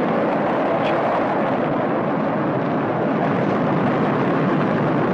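Saturn V rocket's first-stage engines (five F-1s) firing at liftoff: a steady, loud rushing noise with no change in pitch.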